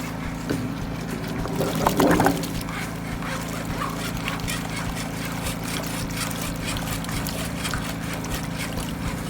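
Water running and gurgling in a drain pipe over a steady low machine hum, with a louder burst of splashing about two seconds in.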